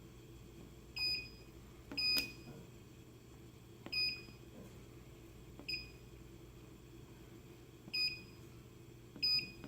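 Keypad of a digital scale display beeping at each button press: six short, high beeps at uneven intervals while a calibration weight is keyed in, over a faint steady hum.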